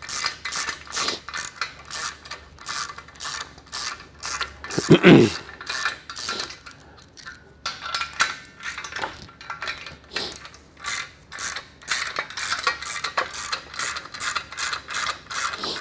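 A hand ratchet wrench clicking in a steady run, about four clicks a second, as it backs out the bolts that hold a transmission's brake drum assembly to the tail housing. The clicking pauses briefly about seven seconds in, and a short, louder sound comes about five seconds in.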